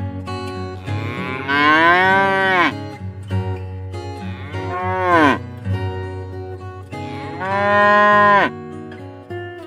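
A cow mooing three times, long calls each ending in a downward slide, over acoustic guitar music.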